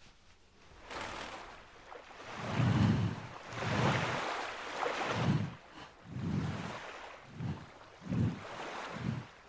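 Rushing surf-and-wind noise swelling in a series of low surges, about one a second at first and then quicker.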